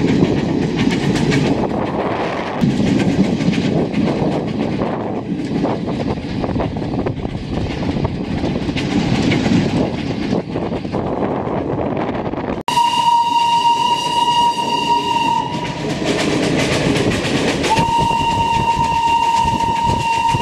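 Coach of the 1855 Fairy Queen steam train running, with a steady rumble and clickety-clack of wheels over rail joints. After a cut about 13 seconds in, the locomotive's steam whistle sounds two long, steady single-pitch blasts, the second starting about 18 seconds in and still sounding at the end.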